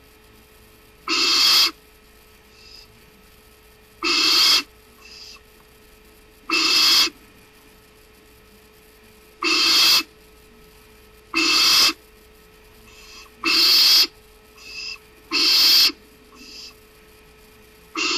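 Barn owl giving a series of harsh, hiss-like screeches, about half a second each, repeating every two to three seconds, with fainter short calls in between.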